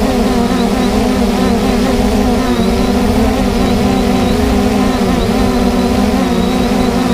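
Heavy farm machinery's engine running steadily at silage harvest: a loud, even drone with no change in speed.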